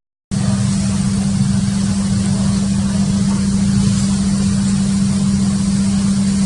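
A steady motor drone: one strong low hum over a rough rumble, unchanging throughout. It cuts in a moment after a brief dead-silent gap at the start.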